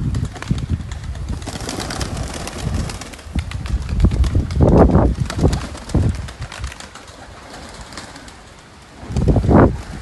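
A flock of Iraqi fancy pigeons cooing, in swells that are loudest about five seconds in and again near the end.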